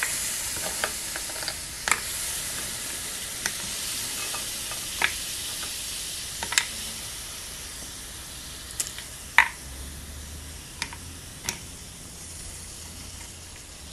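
Frozen shrimp, scallops and calamari sizzling as they are laid on the hot nonstick plate of a Dash Mini Griddle: ice and water flashing to steam give a steady high hiss that eases a little as it goes. Scattered light clicks and taps sound as the pieces are set down.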